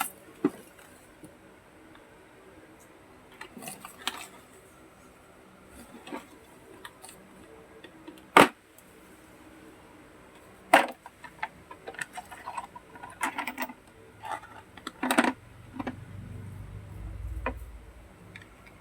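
Clicks and knocks of a 21-piece socket wrench set being handled as it is unboxed, with metal sockets and tools knocking against each other and the case. Two sharper knocks come near the middle, then a quicker run of small clicks, and a low rumble near the end.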